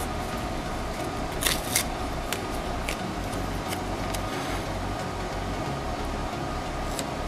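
Green painter's tape pulled off its roll in two short rips about a second and a half in, followed by a few fainter ticks and crackles as it is handled and laid along a board edge, over a steady low hum.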